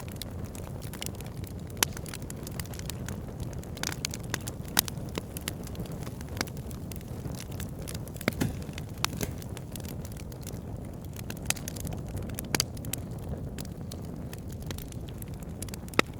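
Campfire burning: a steady low rush of flames with irregular sharp crackles and pops, a few single snaps standing out louder.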